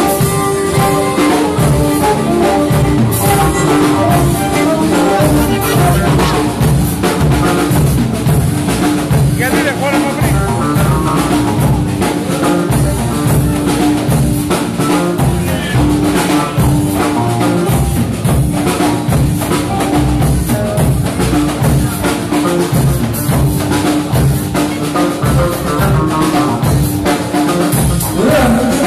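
Live Pontic Greek dance music played by a band of Pontic lyra, keyboard, daouli and drum kit, with held melody notes over a steady drum beat.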